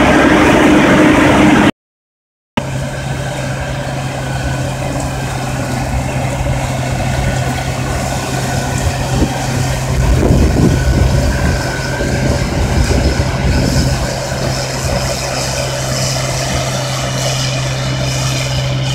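Case International 2022 cotton picker running while harvesting: a steady diesel engine drone with a constant low hum. The sound drops out completely for under a second about two seconds in, then the machine runs on a little quieter.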